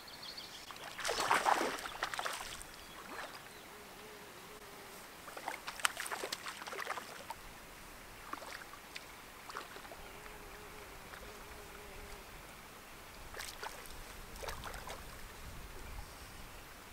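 Water splashing as a hooked brook trout thrashes at the lake surface while being played and landed on a fly rod, in three short bouts: about a second in, around six seconds, and near fourteen seconds.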